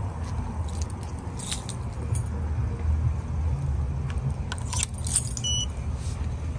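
Keys jangling with a few sharp metallic clicks and jingles, most around two seconds in and again near five seconds, over a steady low rumble. A brief high beep sounds near the end.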